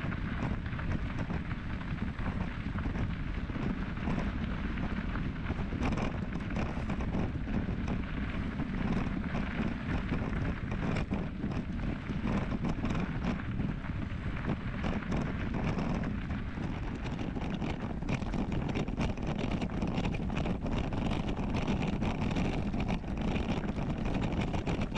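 Wind buffeting the microphone: a steady, rumbling noise with many small clicks and knocks through it.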